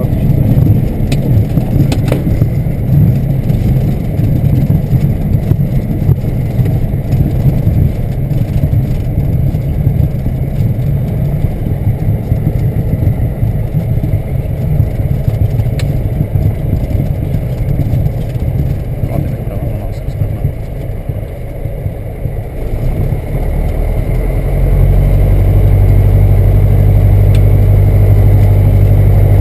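Piper PA-28 Cherokee's piston engine and propeller running, heard in the cockpit as the plane rolls across grass after landing. It is an uneven low rumble at first, and about three-quarters of the way through it settles into a steadier, louder drone.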